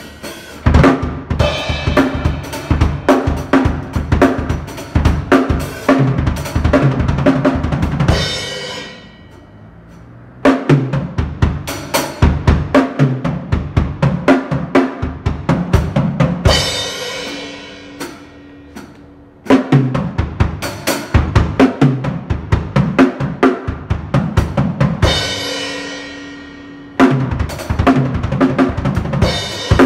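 Acoustic drum kit played in fast rolls across snare and toms with bass drum. It comes in three runs, each ending on cymbals left ringing out for a couple of seconds before the next run starts.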